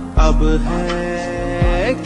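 Instrumental passage of a Hindi film song: a melody line with pitch bends over held chords, with deep drum hits in a repeating long-short pattern.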